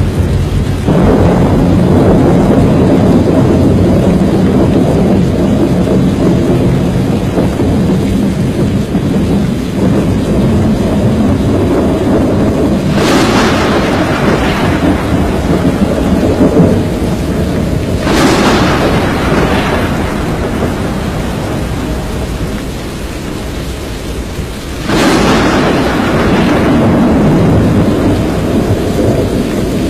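Loud, steady rush of storm wind and heavy rain from a tornado-producing thunderstorm. In the second half, three sudden crashes like thunder claps break in, each dying away over a few seconds.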